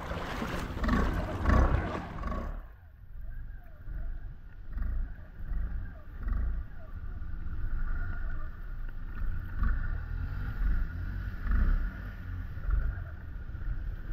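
An ATV engine runs at low speed as the machine wades through deep floodwater, a steady pulsing low rumble with water washing around it. It opens with a loud rush of churning water for the first two and a half seconds.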